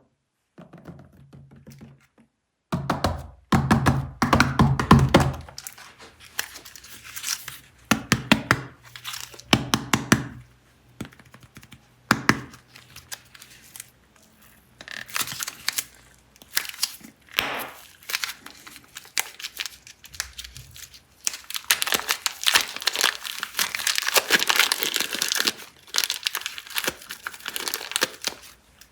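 Plastic packaging of air-dry super clay being crinkled and torn open by hand, in irregular runs of crackling and rustling with the loudest stretches a few seconds in and near the end.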